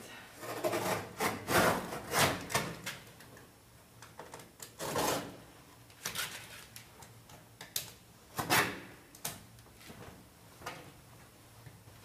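A hand tool rasping and scraping against a painted canvas in irregular strokes, a few of them louder than the rest.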